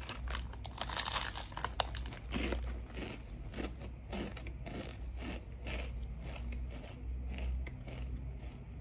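Dry crispy instant noodles being bitten and chewed: a crackly crunch at first, then steady crunching chews about two a second. A plastic snack packet crinkles along with it.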